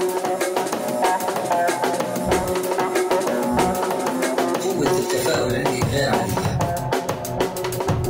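Dance music mixed by a DJ, with a steady drum beat. The deep bass drops out at the start and comes back in fits during the second half.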